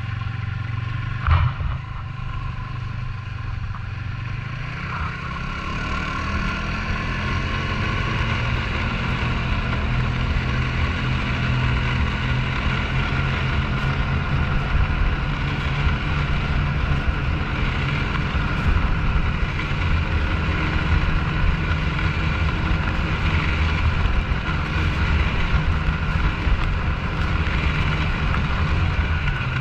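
Snowmobile engine running, with a sharp knock about a second in. The engine picks up speed around five seconds in, then runs steadily at the higher pitch.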